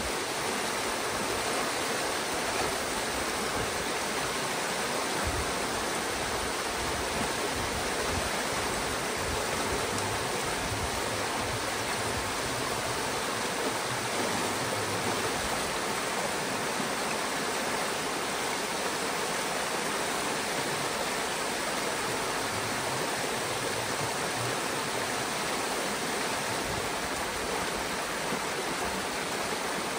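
Pond water rushing steadily through a breach opened in a beaver dam, the pond draining through the gap as white water.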